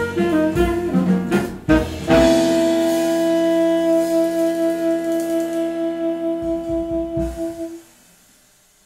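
Jazz ensemble with tenor saxophone and brass playing a short rhythmic phrase with drum hits, then holding a final chord for about six seconds that dies away near the end.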